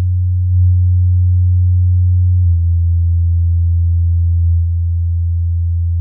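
Audioengine A2+ compact powered speakers playing a steady low sine test tone of around 90 Hz. The tone steps down to about 85 Hz roughly two and a half seconds in.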